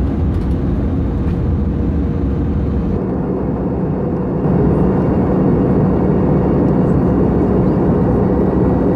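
Steady in-flight cabin noise of an Airbus A320-214: an even drone from the engines and airflow with a low hum underneath. The noise changes character about three seconds in and grows louder a second or so later.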